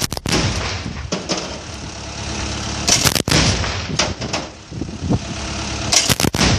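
Truck-mounted heavy anti-aircraft gun firing three short bursts of two or three shots each, about three seconds apart, with a steady rumble in between.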